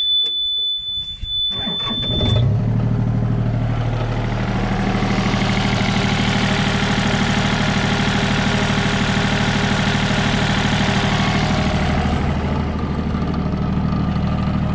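Yanmar mini-excavator's diesel engine starting: a steady high warning beep sounds until the engine catches about two seconds in, then cuts off, and the engine settles into a steady idle. Its owner says it starts very nicely.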